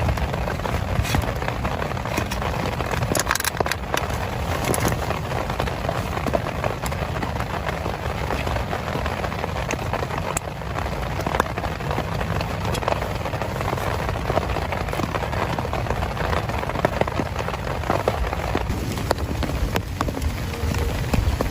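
Heavy rain falling steadily, with many sharp drop impacts striking close by.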